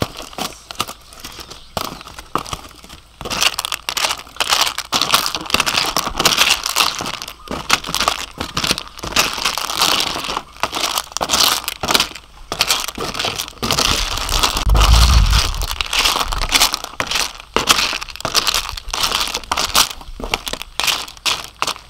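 Aluminium foil crinkling and ribbed clam shells clattering as a wooden spatula stirs grilled clams inside an open foil packet, a dense, continuous run of crackles and rattles. A brief low rumble comes about fifteen seconds in.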